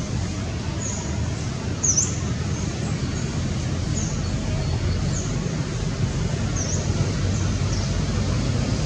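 Short, high bird chirps repeating about once a second over a steady low rumble, with one sharper chirp about two seconds in.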